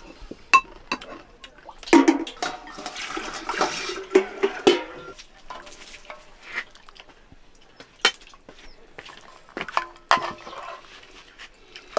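Water or liquid pouring and splashing for a few seconds, with scattered clinks and knocks of pots and dishes.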